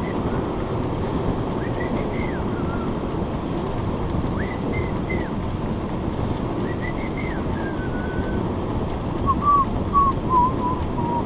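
Steady rushing wind on the microphone, with short high whistled notes repeating every two to three seconds and lower wavering notes near the end.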